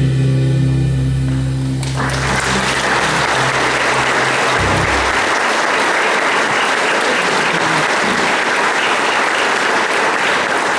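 A live band's final chord on keyboard and electric guitar rings out and stops, then the audience applauds from about two seconds in.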